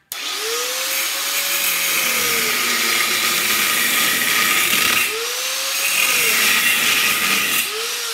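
Handheld electric grinder starting up abruptly and cutting into the welded steel case of a transformer, sparks flying. The motor whine rises and falls in pitch three times as the disc works the weld.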